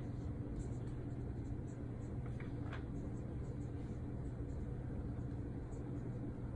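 Dry-erase marker writing on a whiteboard, a few faint short strokes a little past two seconds in. A steady low room hum runs underneath.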